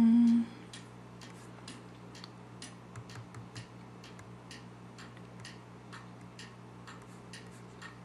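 Light, regular ticking, about three ticks a second, over a steady low electrical hum.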